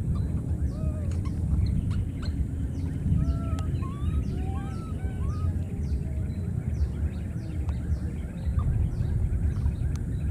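Low rumble on the microphone throughout, with a run of short rising-and-falling animal calls in the first half and a faint regular ticking, just under two a second.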